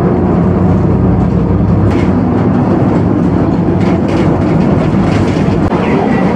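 City bus driving along, heard from inside the cabin: a steady low engine hum, with a few sharp clicks and knocks from the bus's fittings.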